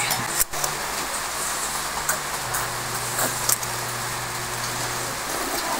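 A few light clinks of a metal spoon and fork against a ceramic plate of noodles, over a steady hiss and a low hum.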